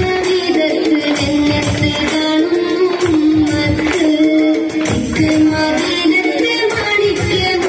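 Daff muttu: daff frame drums beaten in a steady, driving rhythm under a sung melody.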